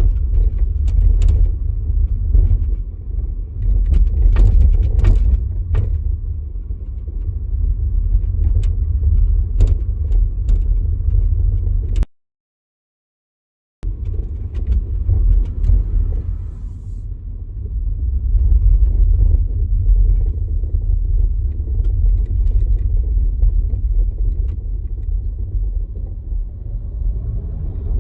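VW e-Up electric car driving: a steady low rumble with many short knocks and rattles in the first half, which the owner blames on the rear axle. The sound cuts out completely for about two seconds near the middle.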